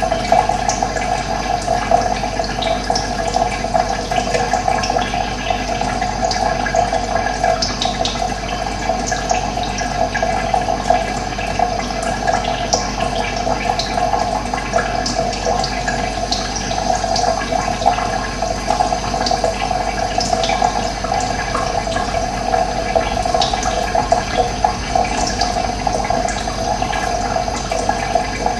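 Running water splashing and rushing steadily, with faint short high bird chirps now and then.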